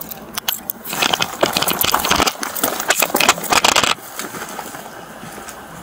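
Scuffle noise from people struggling close to the microphone: clothing and gear rustling and knocking, with a run of sharp clicks in the first second. It turns dense and loud from about one to four seconds in, then quietens.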